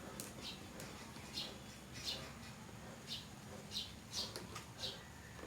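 Faint, short, high bird chirps, repeated irregularly about eight times.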